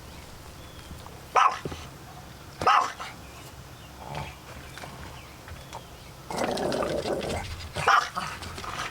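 Dog barking: short sharp barks about a second and a half in, again a second later, and once more near the end, with a longer rough stretch just before the last bark. The dog is reacting to a raven or crow that has come close.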